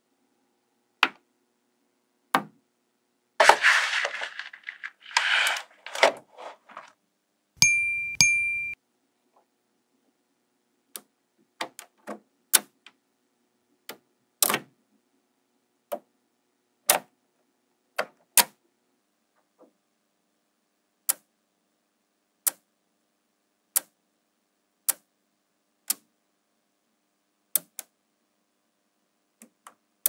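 Small magnetic balls clicking and snapping together as ball-built walls are set in place: single sharp clicks every second or so, with a stretch of quick rattling clatter a few seconds in. About eight seconds in there is one short ringing ding.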